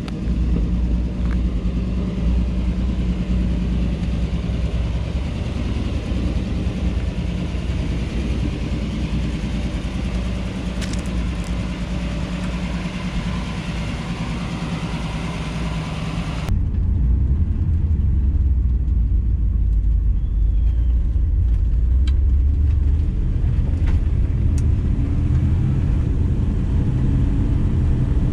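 A 1957 Chevy Bel Air's engine running steadily at a low, even pitch. About halfway through, the sound changes abruptly: it becomes deeper and the hiss above it falls away.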